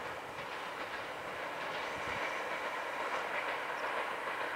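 Running noise of a Meitetsu 6000 series electric train moving away down the line: the steady sound of wheels on rail.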